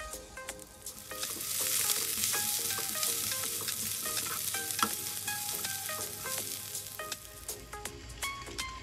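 Sliced ivy gourd (kovakkai) sizzling in hot oil with onions in a nonstick pan while being stirred with a spatula. The sizzle comes up about a second in and eases off near the end.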